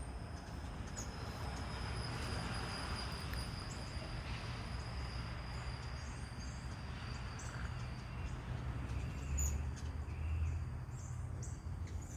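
Outdoor ambience: a steady high-pitched insect trill, with scattered short high bird chirps over a low rumble.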